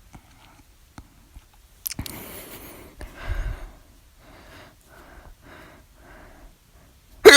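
A woman's hiccups: quiet breathing for several seconds, then one sudden, loud hiccup near the end.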